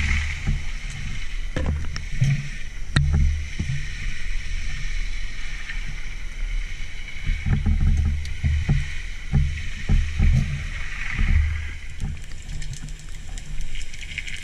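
Underwater sound picked up by a camera in its waterproof housing: irregular low rumbles of water moving around the camera and the swimming diver, with a steady high hiss and scattered sharp clicks.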